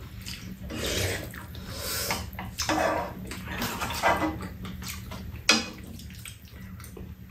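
Close-up eating sounds: wet chewing and slurping with metal spoons scraping against a pan and bowls, and one sharp clink about five and a half seconds in.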